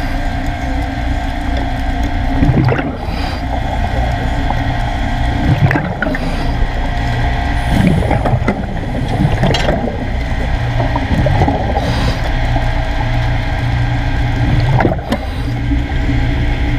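Underwater sound: a steady hum holding several tones over a low rumble, with about six short bubbling gurgles scattered through it.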